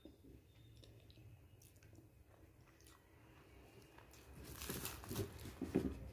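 Quiet chewing, then, about four seconds in, a crisp puffed luchi (deep-fried puri) being torn apart by hand with a dry crackling tear, loudest near the end.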